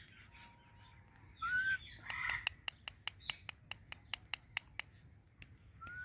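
Indian ringneck parakeet making soft calls: a short high chirp, a rising whistled note and a brief raspy squawk, then a run of quick clicks at about five a second.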